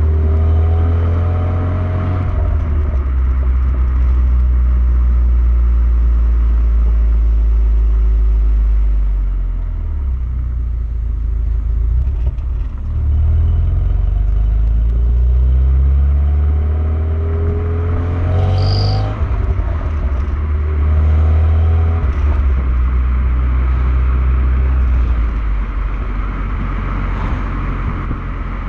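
Renault Megane R26's 2.0-litre turbocharged four-cylinder engine and exhaust on the move, the engine note rising and falling with the revs and gear changes. The engine has the 'Megane cough' that its owner suspects is an injector fault or misfire.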